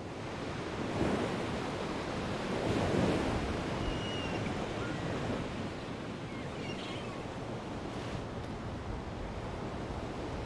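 Steady outdoor rushing noise, like wind or surf on the microphone, swelling twice in the first few seconds. A few faint high chirps come in the middle.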